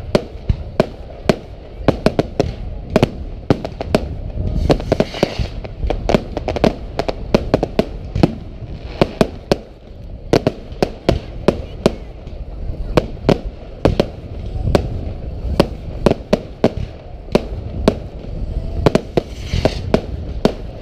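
Aerial fireworks display: a rapid, irregular run of sharp bangs from bursting shells and rockets, several a second, over a low rumble.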